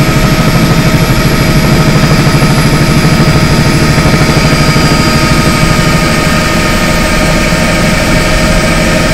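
Helicopter in flight heard from inside the cabin: a loud, steady drone of turbine and rotor with a fast low throb and a steady whine on top.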